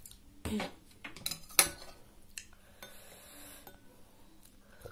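Metal spoon clinking against a glass bowl of soup: several sharp clinks, the loudest about a second and a half in, then a softer stretch of stirring.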